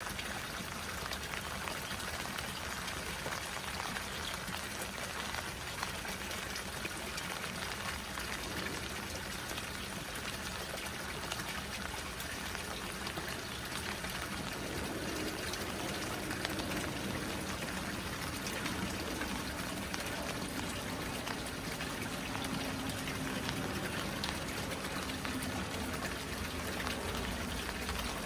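Rain pattering on the surface of a small koi pond, mixed with a steady splash of water pouring from an inlet pipe into the pond.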